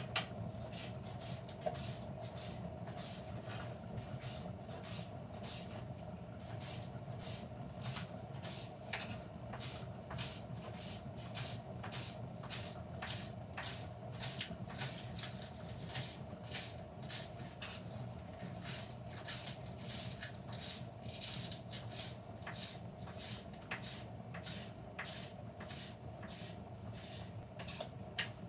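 Knife chopping spring onion and chili on a wooden chopping board: a steady run of short cuts, about two to three a second, over a steady low hum.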